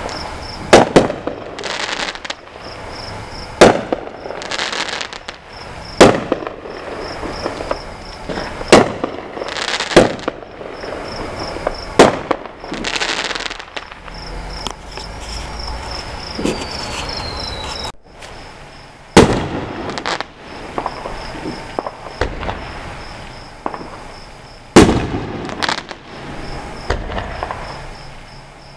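Fireworks going off: a string of sharp bangs every one to three seconds, with hissing between some of them. Crickets chirp steadily underneath.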